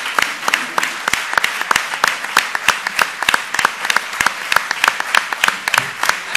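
A large audience applauding, the clapping in unison at a steady beat of about three claps a second.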